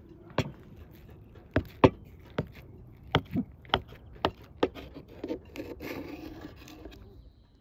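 A knife cutting down through a set jellied-meat aspic, its blade clicking sharply against the plate beneath again and again, then scraping and rubbing for a second or two near the end.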